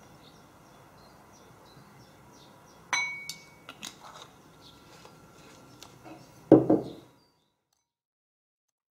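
A metal spoon clinking against a ceramic bowl while stirring a coffee-grounds scrub. There is a ringing chink about three seconds in, then a few lighter clicks, then a louder dull knock about six and a half seconds in. The sound cuts off abruptly about seven seconds in.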